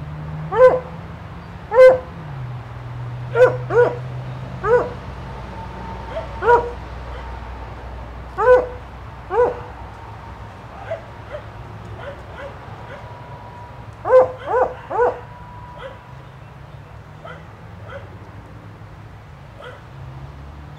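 Dog barking in single, sharp barks at irregular intervals, with a quick run of three about two-thirds of the way through and fainter barks near the end.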